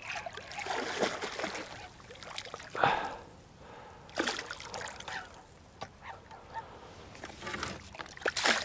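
Hooked largemouth bass splashing at the water's surface beside a canoe in several irregular bursts, the biggest about three seconds in.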